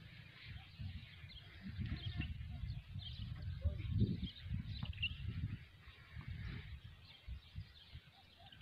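Wind buffeting the phone's microphone in uneven gusts, loudest about four seconds in, with faint, short bird chirps over it.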